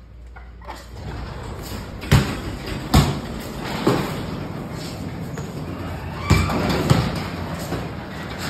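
Electric garage door opener running as the sectional door rises, under a steady rumble of rain that grows as the door opens. Five sharp knocks or thuds stand out, the loudest two near the start.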